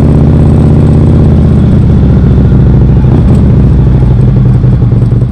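Harley-Davidson CVO Street Glide's air-cooled Twin Cam 110 V-twin running loud and steady at low revs, its firing pulses close to the microphone, as the bike rolls slowly.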